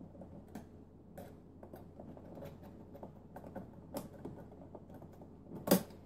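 Small clicks and taps of electrical cable and wires being pushed through a connector and handled against a dishwasher's metal junction box, with one louder click near the end.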